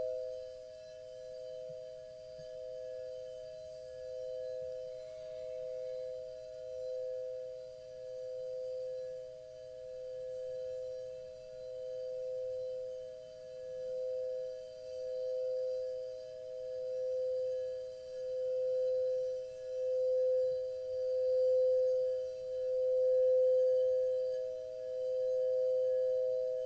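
A sustained two-pitch ringing meditation tone, pulsing in a slow wobble about every second and a half and swelling louder toward the end.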